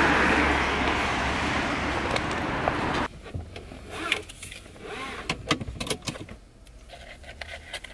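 A steady, loud rushing noise while walking outdoors, cut off suddenly about three seconds in. After that it is quiet inside a car, with scattered clicks, taps and rustles of small things being handled.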